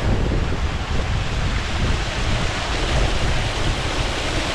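Steady rushing noise with wind buffeting the microphone in an uneven low rumble.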